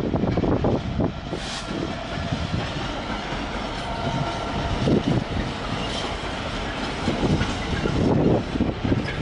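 Diesel-hauled intermodal container freight train passing at speed, its container wagons rumbling and clattering over the rails and pointwork, with steady rolling noise that swells a few times.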